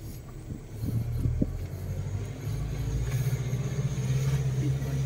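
Car engine and tyre noise heard from inside the cabin while driving along a rough dirt road: a steady low hum that grows louder about a second in and again about two and a half seconds in, with a few light knocks about a second in.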